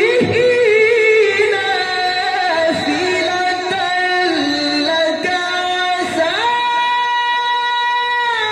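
Male qari reciting the Quran in the melodic tilawah style into a microphone. A single voice moves through quick ornamented turns, then about six seconds in rises to a long, high held note.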